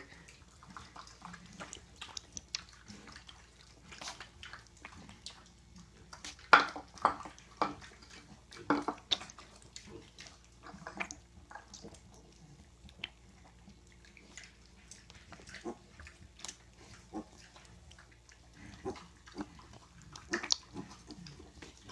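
Mini piglet lapping and slurping goat's milk from a shallow dish: irregular wet smacks and licks, a few louder ones about six and nine seconds in.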